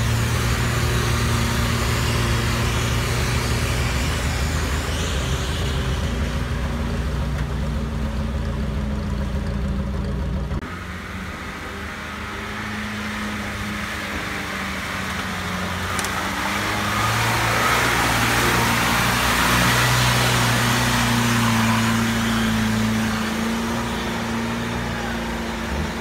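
UAZ-469 off-roader's engine working under load as it drives through deep mud and standing water, its note rising and falling with the throttle. About ten seconds in the sound drops suddenly, then builds to harder revving with water and mud splashing around the wheels.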